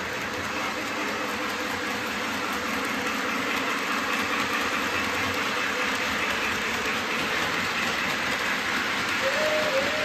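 Lionel model trains running on three-rail track: a steady whir and rumble of electric motors and wheels. About nine seconds in, a steady whistle tone starts.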